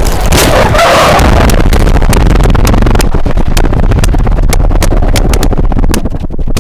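A car rolling over in a crash: a loud, heavy rumble with a rapid run of sharp knocks and crackles as the body strikes the ground, spacing out toward the end as it slows.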